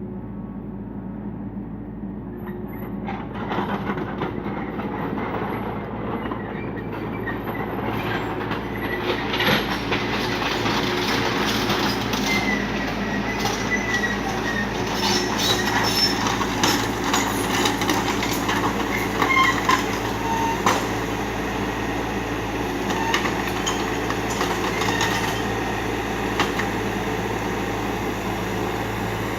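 Kubota U35 mini excavator's diesel engine running steadily, with its steel bucket scraping and digging into rock and sand from a few seconds in: grinding, clattering stones and short high squeals of metal on rock.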